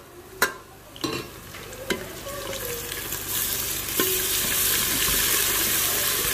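Ginger-garlic paste and browned onions frying in hot oil in a metal pot, stirred with a spatula. A few sharp knocks against the pot in the first seconds, then the sizzle builds up from about three seconds in and stays loud.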